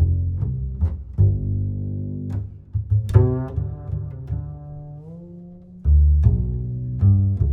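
Music with deep, held bass notes and a series of sharp string-like note attacks.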